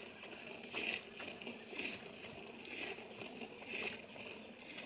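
Jets of milk squirting into a steel pail partly filled with milk as a buffalo is milked by hand, a short hissing squirt about once a second.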